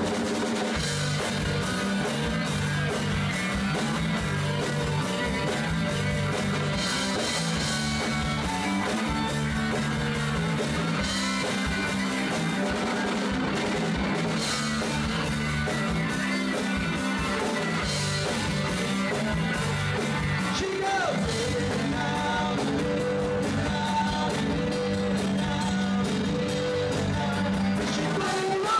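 A band playing rock live, with electric guitar, a drum kit and a singer. The playing is continuous and steady in level, and busy cymbal strokes come in for the last few seconds.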